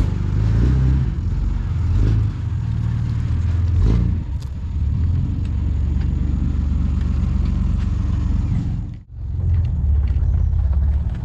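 Low, steady rumble of a vehicle on the move, with noise from its motor and travel. It drops out briefly about nine seconds in, then carries on.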